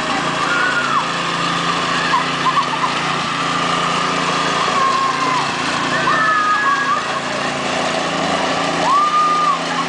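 Gravely garden tractor engine running steadily as it tows a loaded cart, with high-pitched voices calling out several times over it.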